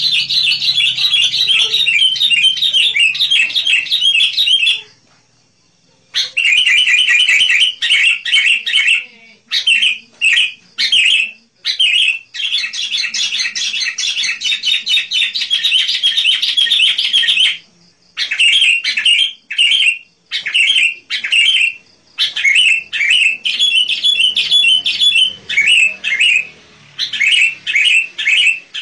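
Sooty-headed bulbul (kutilang) singing: long runs of rapid, chattering chirps, broken by a pause of about a second near the start and by shorter gaps later, when the song breaks into short separate phrases.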